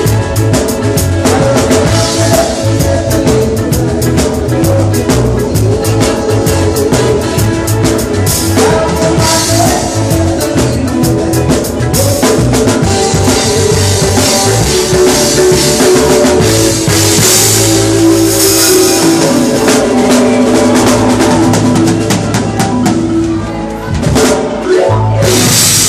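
Live band playing, with a drum kit heard up close: a busy beat on bass drum and snare, with cymbal crashes in the second half and again just before the end, over held keyboard and bass notes.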